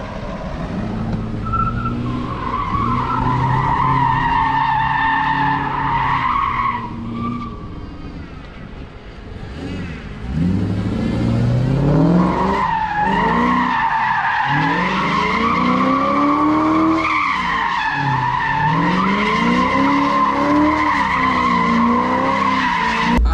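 1950s Ford F-100 pickup on a Crown Victoria Police Interceptor chassis doing donuts: its rear tyres squeal steadily as they spin on concrete. The squeal eases off for a few seconds partway through, then comes back with the engine revving up and down again and again.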